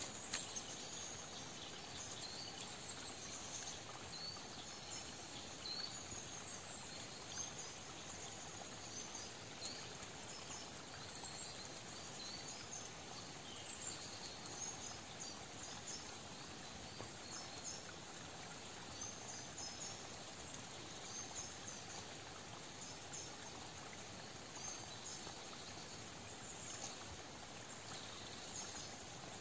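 Woodland stream ambience: a small, shallow forest brook trickling steadily, with faint, short, high chirps scattered throughout.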